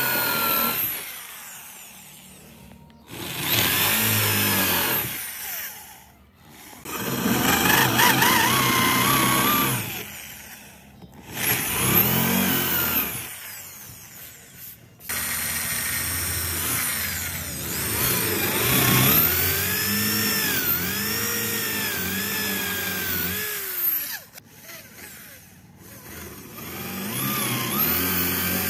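Corded electric drill boring holes into a wooden board with a wood-boring bit, in about five runs with short pauses between them. The motor's pitch swoops up and down as the bit bites into the wood, and the longest run comes in the second half.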